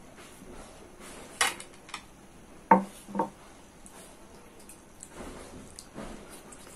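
Plates clinking and knocking as food is tipped from a small plate onto a larger one: a couple of sharp clinks, then two louder knocks around the middle. Softer hand-eating sounds follow.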